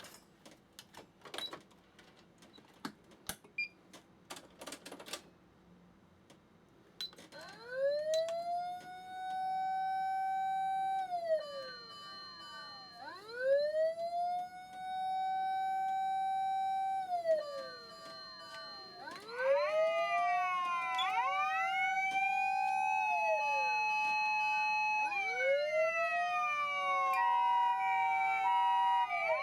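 Japanese emergency-vehicle electronic siren amplifiers (SAP500R, MK-9, SAP500) sounding from one combined unit. After a few sharp clicks, a siren wail starts about seven seconds in, rising, holding and falling in cycles of about six seconds. A second wail joins, overlapping it, at about twenty seconds, and an alternating two-tone siren joins near the end.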